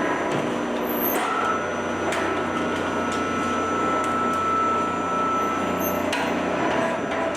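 Industrial shredder running loud and steady with a held whine, with two sharp knocks: the machine used to destroy an AR-15 rifle by mechanical shredding.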